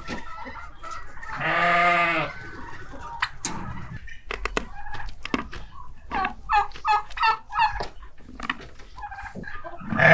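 Sheep bleating: one long wavering baa about a second and a half in and another loud one at the very end. In between comes a quick run of about six short, higher calls, with scattered clicks.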